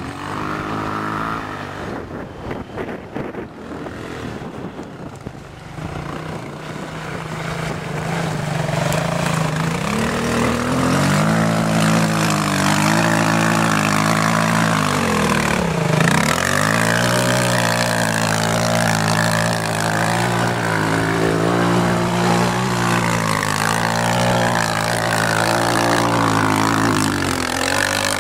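Bashan 250 quad's engine revving hard as the quad churns through a muddy water hole, growing louder after the first several seconds. About halfway through, the revs drop sharply and climb straight back up.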